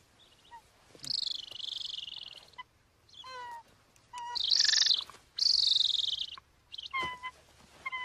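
Golden eagle, restrained in the hand, calling: three long, harsh, rasping screams with short, clear yelps between them.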